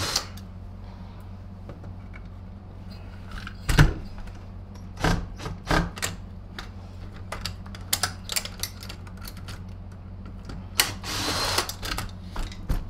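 Cordless drill-driver backing out the screws of a Royal 885 vacuum's motor cover, with clicks and knocks of the metal housing being handled. A longer scraping rattle comes near the end, over a steady low hum.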